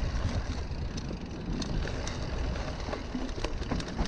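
Mountain bike rolling slowly down a dirt trail, heard up close on the bike: a steady low rumble of knobby tyres over loose ground, with a few sharp clicks and knocks from the bike.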